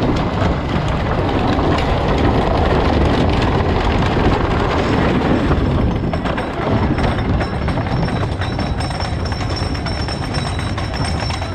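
Wooden roller coaster train running on its wooden track, a loud continuous rumble and rattle full of sharp clacks, heard from a rider's seat.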